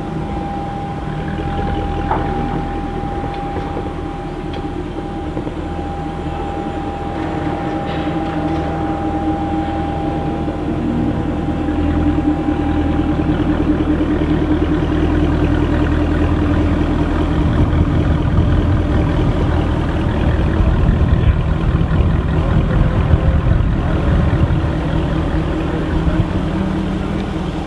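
Jaguar F-Type sports cars idling in a queue, a steady low engine rumble that grows louder from about halfway through. A thin steady high tone sits over it for the first half.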